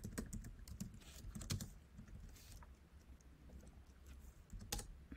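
Typing on a computer keyboard: soft, irregular key clicks, with one louder keystroke near the end.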